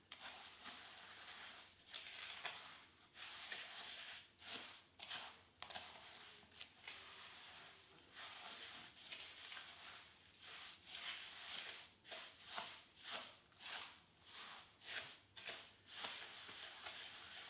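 Spoon stirring crisp rice cereal (rice bubbles) in a mixing bowl, crunching and rustling with each stroke in a quick, uneven run of strokes, as melted Copha and cocoa are worked through the dry mix.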